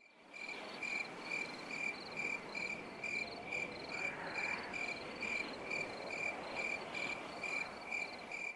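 Crickets chirping in a steady, even rhythm of about three chirps a second, over a faint hiss of night ambience.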